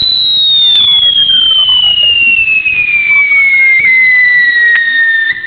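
A whistling firework fountain gives off a loud, shrill whistle that slides slowly and steadily down in pitch. Fainter whistles cross and fall beneath it, and it cuts off abruptly near the end.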